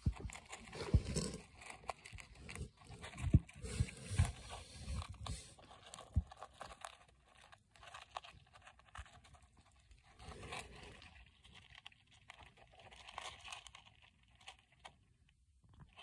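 A hamster eating seeds and nuts in a plastic dish: quick, irregular crunching and crackling as it nibbles, with scrapes and rustles, and a few louder knocks in the first six seconds.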